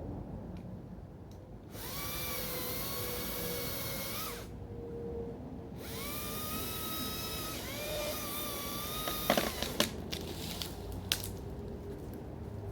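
Chainsaw cutting through the dead cedar in two bursts of a few seconds each, with a short pause between them, followed by a few sharp cracks.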